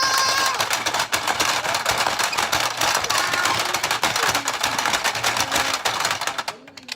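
Dense, rapid clicking and clattering throughout, with a high held voice note ending about half a second in.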